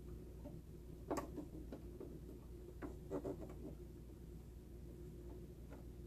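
Faint handling sounds of fingers threading a sewing machine needle: a few soft clicks and taps about a second in and again around three seconds, over a low steady hum.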